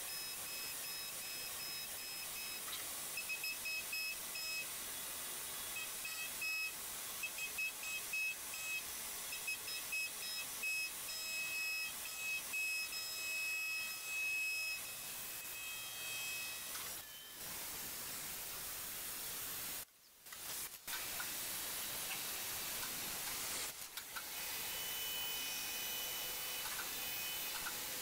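CNC milling machine cutting with flood coolant: a steady spray hiss with a high-pitched whine from the end mill that keeps starting and stopping. The sound drops out briefly a few times in the second half.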